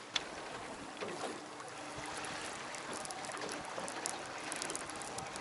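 Water washing against a boat's hull: a steady wash of noise with a small click just after the start and scattered faint light ticks.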